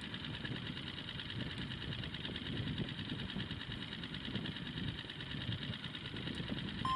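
Outboard motor idling steadily, a low rumble with a fast, even pulsing.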